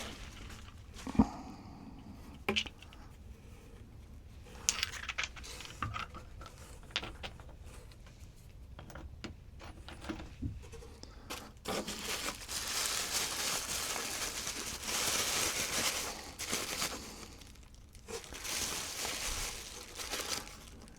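Wrapping crinkling as obsidian rock pieces are unwrapped, in long stretches in the second half, with scattered sharp knocks of the stones being handled and set down.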